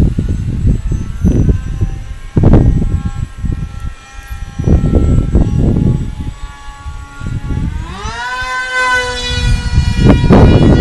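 Electric motor and propeller whine of a radio-controlled foam MiG-29 model plane in flight, rising in pitch about a second in and climbing sharply at about 8 s as the throttle opens. Heavy gusts of wind buffet the microphone throughout.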